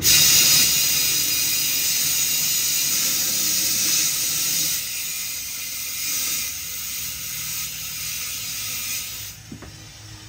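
Compressed air hissing from an air-hose chuck into a car tyre as it is inflated on its rim. The hiss starts abruptly, eases a little about halfway and stops near the end.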